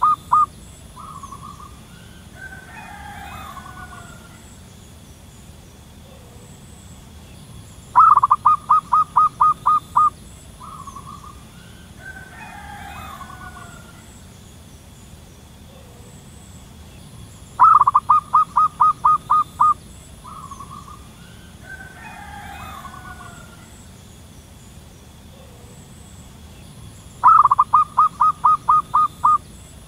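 Zebra dove calling: three times, at roughly ten-second intervals, a loud rapid run of about eight or nine short cooing notes lasting about two seconds, each ended by a short single note. Fainter gliding bird calls come between the runs over a steady high insect hiss.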